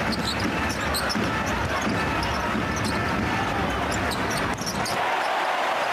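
Live basketball game court sound: the ball being dribbled and bouncing on the hardwood floor over a steady arena crowd hubbub, with short high squeaks scattered through.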